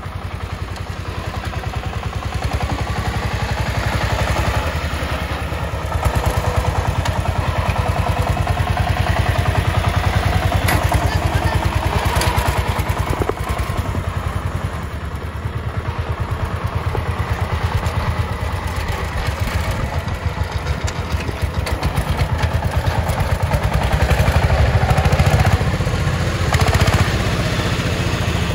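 Two-wheel power tiller's single-cylinder diesel engine running as it drives along, with a fast, even chugging that swells in loudness a few times and some clatter from the machine.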